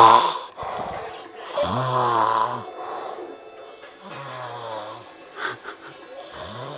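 Man snoring heavily in his sleep: long, low snores that come about every two seconds, the one about two seconds in the loudest.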